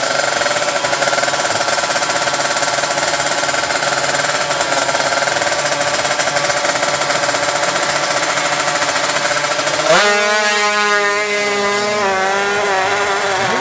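Drag-bike motorcycle engine held at high, steady revs on the start line. About ten seconds in it launches: the pitch climbs, drops back and climbs again as the bike shifts up through the gears and pulls away down the strip.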